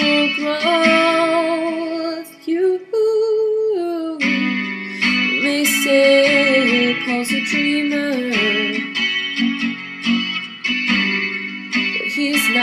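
Guitar music: chords with a wavering, held melody line above them, in a song with vocals.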